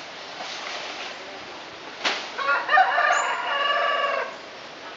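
A rooster crowing once, about two seconds in: a broken start and then a long held note, preceded by a sharp click.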